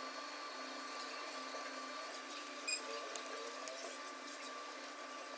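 Faint, steady hum of workbench equipment, with a few soft ticks and scrapes and one slightly louder click near the middle.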